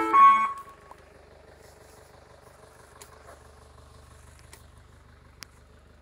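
Ice cream van's chime tune ending with a held note in the first second, followed by the faint steady hum of a vehicle engine.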